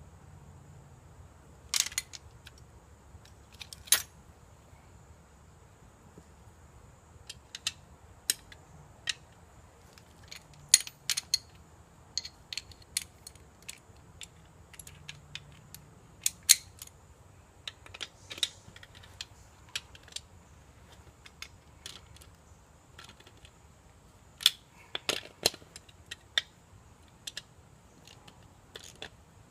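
Small metal hand tools and wheel bolts clinking and clicking at irregular intervals while a split-rim minibike wheel is bolted back together. There are about two dozen separate sharp clicks, with a cluster of louder ones near the end.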